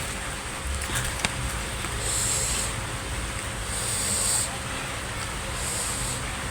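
A person eating: three short bursts of wet mouth sounds from chewing, about every second and a half, over a steady low background hum.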